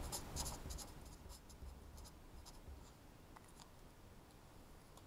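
Felt-tip marker writing on paper in quick short strokes, densest in the first second, then a few faint ticks as the writing ends.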